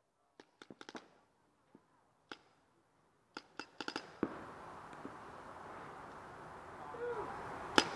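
Paintball markers firing: sharp pops, some single and some in quick strings, with a dense flurry of shots near the end. A steady hiss comes in about four seconds in.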